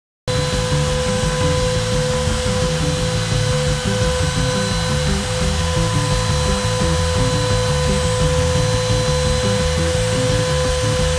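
Compact trim router with a 3/8-inch double-flute straight bit running at speed, a steady high-pitched whine that cuts in abruptly just after the start, with background music underneath.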